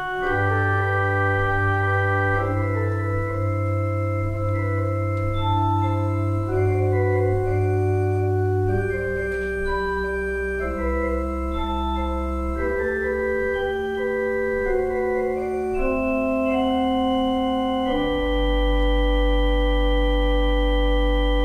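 Organ playing a slow prelude: sustained chords moving over long held deep bass notes. About eighteen seconds in it settles on a louder, full chord with a very deep bass note, held.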